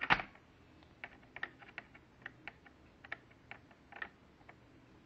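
A small screwdriver clicking and tapping against a laptop's plastic bottom case: one sharp knock at the start, then a run of irregular light clicks.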